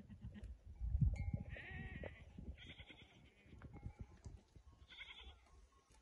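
Goats bleating: three high, quavering calls, over a low rumble that is loudest about a second in.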